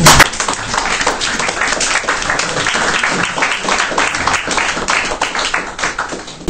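Audience applauding, many hands clapping in a dense patter that opens with two loud strokes close by and thins out toward the end.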